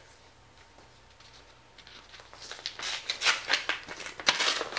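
Paper rustling and crinkling as a thank-you card is handled and pulled out. It starts about two seconds in and comes as a quick run of sharp, scratchy strokes.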